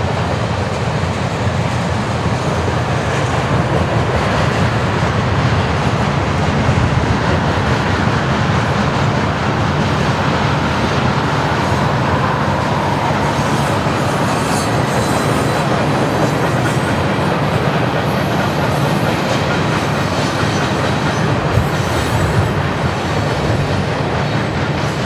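Freight cars of a long mixed freight train rolling past, with a steady rumble of steel wheels on rail, a clickety-clack rhythm and a few clanks in the middle and later on.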